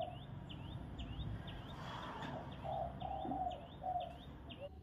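Birds calling: one repeats a short chirp about twice a second, over lower, longer cooing notes.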